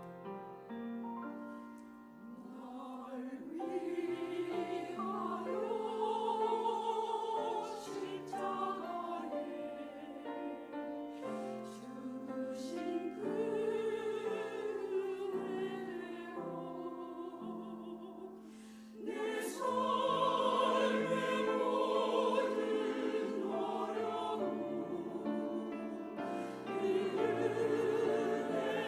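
Church choir singing an anthem with piano accompaniment, the voices swelling louder about two-thirds of the way through.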